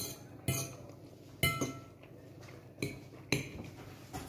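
A metal fork clinking against a bowl while fettuccine are picked up, about six separate short clinks with a brief ring.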